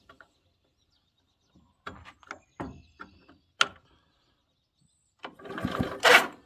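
Hands working on a Stihl 056 chainsaw's controls: several light clicks and taps, then a longer, louder scraping rustle near the end.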